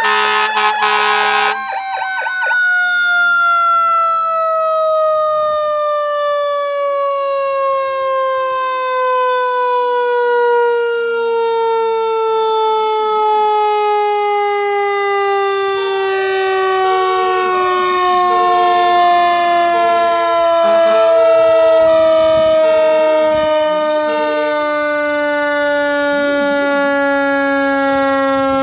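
Federal Q2B mechanical siren winding down, its pitch falling slowly and evenly throughout. Air horns sound with it at the start and cut off about a second and a half in. A fainter tone pulses on and off about once a second in the background through the middle of the stretch.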